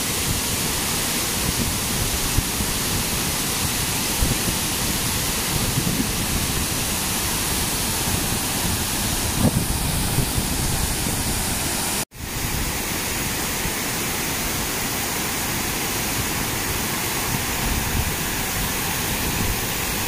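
Darbat waterfall's water cascading over rock ledges into a pool: a steady, full rush of falling water, broken by a momentary dropout about twelve seconds in.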